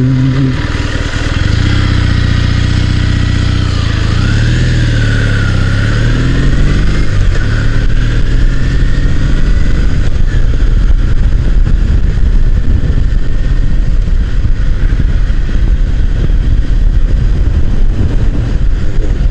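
Motorcycle engine pulling away and accelerating, its pitch rising and dipping through gear changes. From about halfway on, steady wind rush from riding at speed covers the engine.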